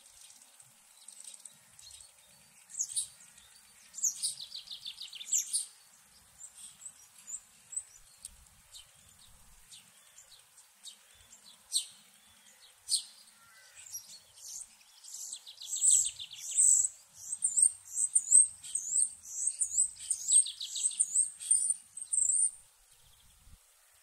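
Songbirds singing in a forest: scattered high, thin chirps and a few fast trills, then from about halfway in a louder run of quick, repeated high sweeping notes that stops shortly before the end.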